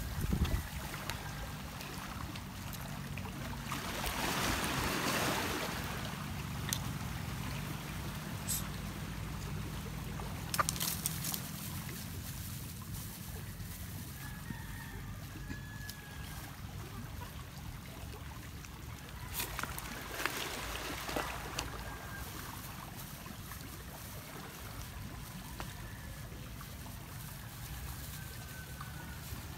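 Steady wash of waves and wind on a pebble shore, swelling briefly about four seconds in, with a few small sharp clicks and faint calls of a chicken in the distance.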